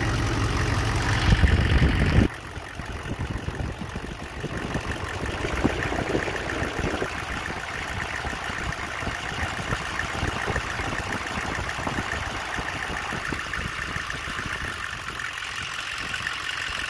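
GM 6.5L turbodiesel V8 running with a steady diesel clatter, loudest for the first two seconds and then drops to a steadier level. With the engine coolant temperature sensor unplugged, the ECM reads very cold coolant and raises the idle to about 1,000 rpm.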